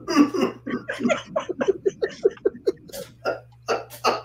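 A person laughing hard in quick breathy bursts, about five a second at first, then slowing into fewer, stronger gasping bursts.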